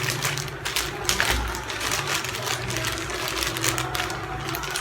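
Rapid crackling and rustling of a plastic parcel and its packaging being handled and opened, with a steady low hum underneath.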